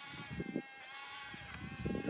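Small electric motor and gearbox of a radio-controlled construction vehicle whining steadily, with irregular low clattering and crunching from its drive working in dirt.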